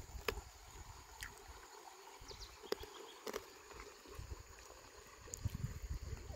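Faint outdoor ambience: a steady high insect drone, patchy low rumbling on the microphone, and a few light scattered clicks.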